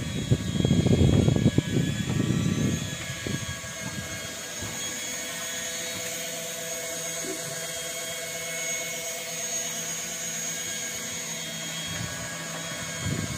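Steady drone of the fishing boat's engine, several held tones over a low hum, with a loud irregular low rumble over it for the first three seconds.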